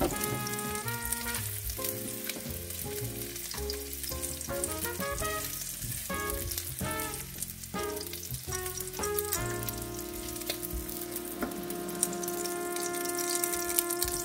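Sliced smoked sausage and onions sizzling in hot oil in a pan, with a slotted spoon scraping the pan as the pieces are lifted out. Background music plays a light melody over a bass line, settling into long held chords about two-thirds of the way through.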